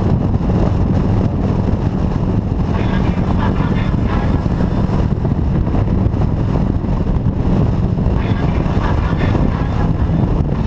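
Touring motorcycle running steadily at highway speed, its engine a low drone under heavy wind and road noise.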